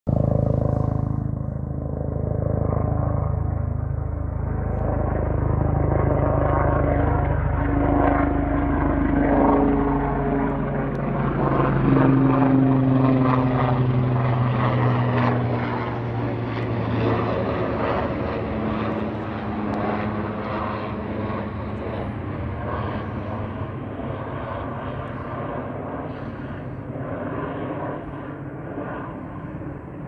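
Helicopter passing overhead, its pitch dropping about halfway through as it goes by, then fading slowly as it flies off.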